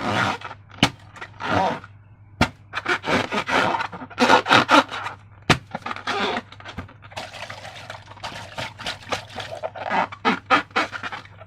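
Slime being squished and worked by hand, giving irregular wet crackling and squelching with a few sharp clicks.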